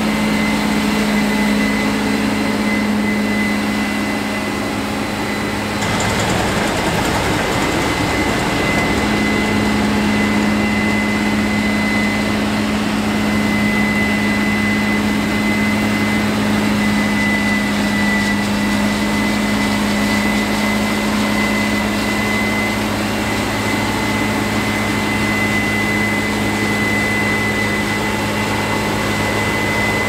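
Case IH 7120 combine harvester running under load while cutting wheat: a steady, loud engine drone with a constant high whine over it.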